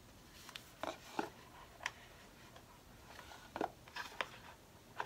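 Faint scattered clicks and rustles of an Apple Watch box and its packaging being handled and opened.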